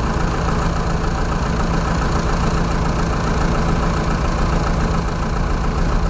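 Loaded dump truck's diesel engine running steadily at low revs as the truck reverses slowly over a dirt track.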